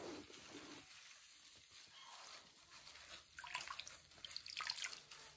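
Faint wet rustling and squishing of a washcloth being lathered with soap in gloved hands over a basin of water, busiest about three and a half to five seconds in.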